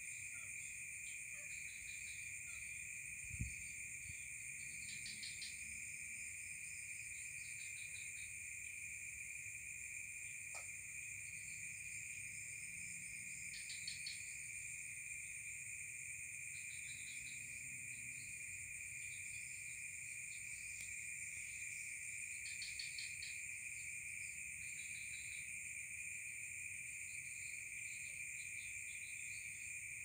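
Steady chorus of crickets and other insects: two continuous high-pitched trills at different pitches, with shorter pulsing chirps coming and going in between. A single low thump about three seconds in.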